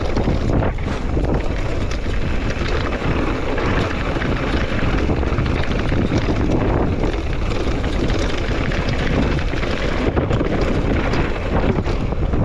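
Loud, steady wind buffeting the microphone of a downhill mountain bike on the move, with scattered clicks and knocks from the ride underneath.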